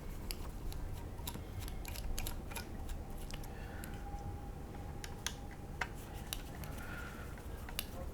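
Scattered light clicks and taps of small hand tools on plastic parts as the shock absorbers are taken off a 3D-printed RC car chassis.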